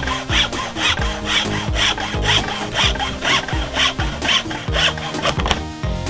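Hacksaw cutting through a strip of painted plywood in steady back-and-forth strokes, about two a second, stopping shortly before the end as the cut goes through.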